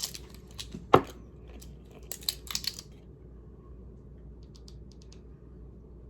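Light clicks and taps of a measuring spoon and dried-herb jar as a teaspoon of dill weed is measured out. There is a sharp click about a second in, a quick run of taps around two seconds in, then a few faint ticks.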